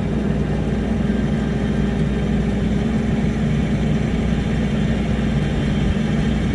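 A vehicle engine idling steadily, an even low hum with no revving.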